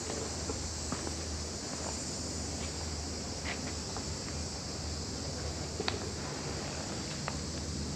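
A steady insect chorus, an even high-pitched hiss, with a low hum underneath and a few faint clicks.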